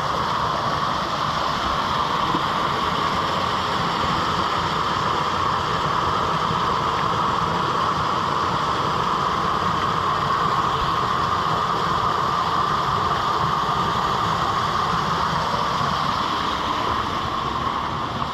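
Fast-running creek water rushing steadily through a rocky gully.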